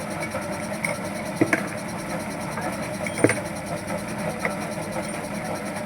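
A vehicle engine running steadily, with a few sharp knocks about one and a half and three seconds in.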